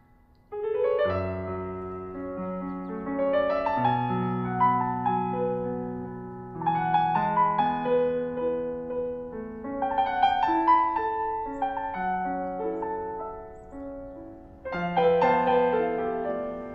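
Background piano music: a slow melody of held notes over low bass notes, starting about half a second in after a brief hush, easing off briefly and coming back louder near the end.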